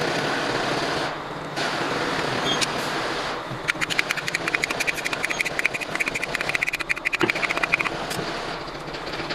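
Rapid run of metallic ratchet clicks lasting about four seconds, starting a few seconds in, over a steady background noise.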